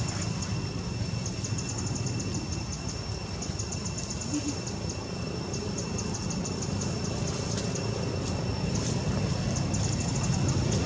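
Steady outdoor background: a low rumble, with a thin steady high tone and rapid high ticking that comes in short runs every second or so.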